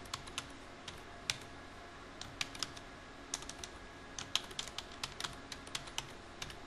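Computer keyboard keystrokes, typed in short irregular runs of clicks with brief pauses between them.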